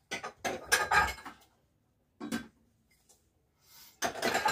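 Dishes and pots clattering at a kitchen sink while being hand-washed and dried: about a second of clatter at the start, a short knock about two seconds in, and another clatter near the end.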